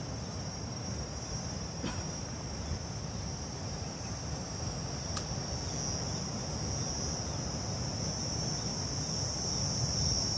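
Insects buzzing in a steady, high-pitched drone that grows louder in the second half, over a low background rumble.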